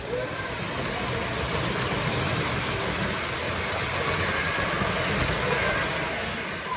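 Steady rumble and hiss of a moving vehicle, swelling a little and easing off near the end.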